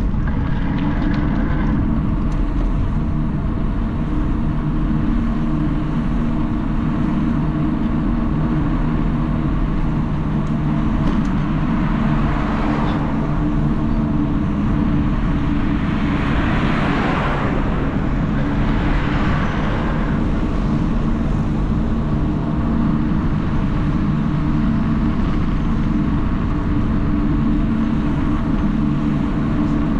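A motor vehicle's engine running at a steady speed, with passing traffic swelling up several times around the middle.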